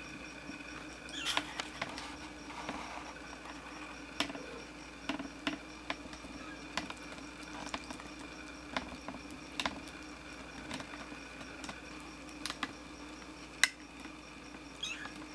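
Kittens about three weeks old crawling over a fabric blanket: scattered small clicks and scratches, about one or two a second at irregular intervals, over a steady faint hum.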